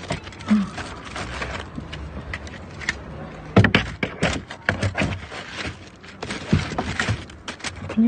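Paper bread bags rustling and tongs clicking as they dig through bagged loaves and rubbish, in an irregular run of scrapes and small knocks. The sharpest knocks come about three and a half and four and a half seconds in.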